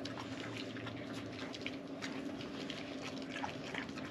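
Two Kangal puppies chewing and tearing at a piece of raw meat, making irregular small wet clicks and smacks.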